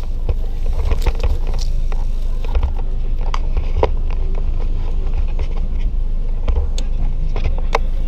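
Handling noise on an action camera's microphone: a steady low rumble with scattered sharp knocks and clicks, the sharpest about four seconds in and near the end.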